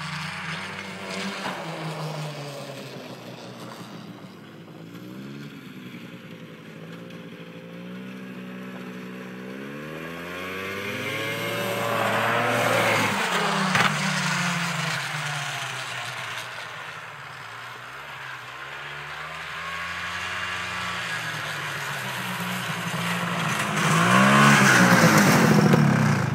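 Ski-Doo Tundra snowmobile's two-stroke engine running as it rides across the ice, its pitch rising and falling with the throttle. It grows louder as it passes nearer about halfway through, and is loudest near the end as it comes up close.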